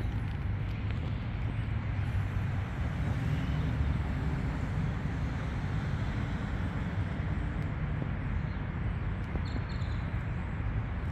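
City street traffic noise: a steady rumble of cars passing on the road.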